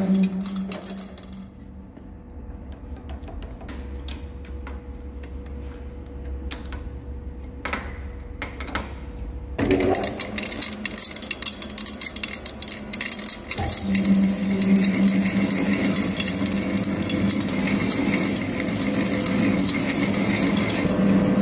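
Centre lathe machining the weld off a steel hydraulic cylinder barrel, with metal chips tinkling. The cutting noise dies away about a second in, leaving the spindle running quieter with scattered clicks. Near ten seconds the tool goes back into the cut and the cutting sound returns, growing steadier with a hum from about fourteen seconds.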